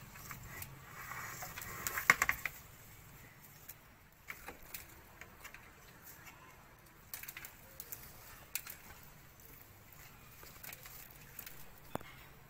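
Small clicks and rustles of hands pulling weeds and handling leaves and soil in potted plants, with a short, louder rustling flurry about two seconds in.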